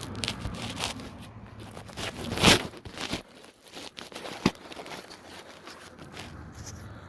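Handling noise from hand tools at work on the fender bolts: scattered clicks and knocks. A short, loud scraping rustle comes about two and a half seconds in, and a sharp click about four and a half seconds in.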